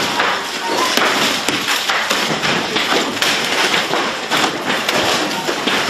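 Dense, irregular thuds and knocks of things being struck and broken, over a steady noisy background of commotion.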